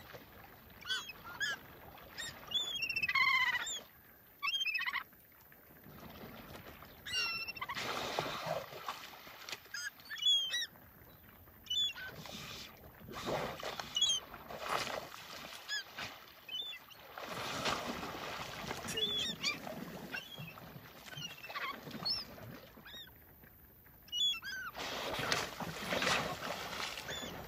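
A flock of gulls calling over the water: many short cries that slide up and down in pitch, overlapping and coming throughout, with splashing now and then as a sea lion thrashes a fish at the surface.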